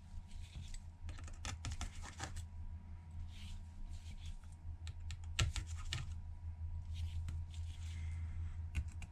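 Light, irregular clicks and taps of a precision screwdriver and tiny screws on the metal brackets inside an iPhone 8, as the screws are backed out and set down one by one, over a steady low hum.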